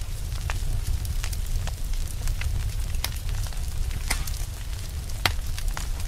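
Crackling log fire: irregular sharp pops and crackles over a steady low rumble of flame, with the loudest pop a little past five seconds in.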